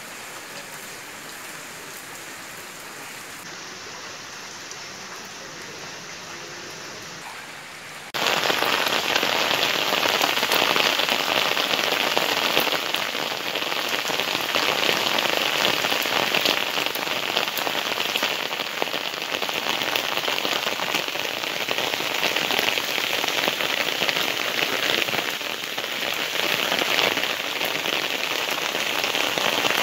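Steady rain falling on wet paving and terracotta clay pots, pattering into the water standing in them. About eight seconds in the rain jumps suddenly louder and denser and stays that way.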